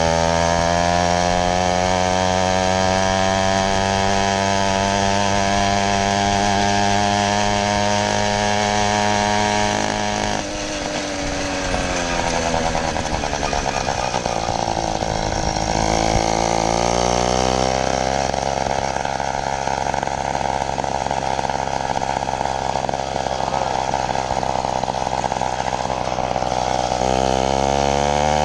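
80cc two-stroke motorized-bicycle engine running as the bike is ridden. It holds steady revs for about ten seconds, then suddenly drops off, and winds back up over the next few seconds before holding steady again.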